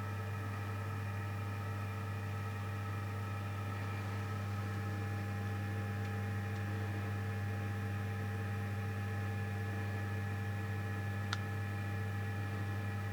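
Steady electrical mains hum, a low drone with several fainter steady tones above it, and one faint click about eleven seconds in.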